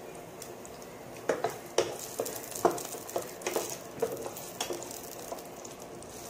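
Whole shallots and whole spices sizzling in hot oil in a nonstick pan. From about a second in they are stirred with a wooden spatula that knocks and scrapes against the pan several times, the loudest knocks near two and three seconds in.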